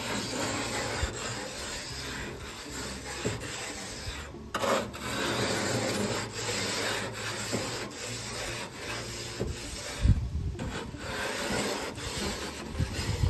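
Pumice grill-cleaning stone in a handle scrubbed back and forth along dirty grill grates: a continuous gritty scraping, with a brief pause about four seconds in and a few low thumps near the end.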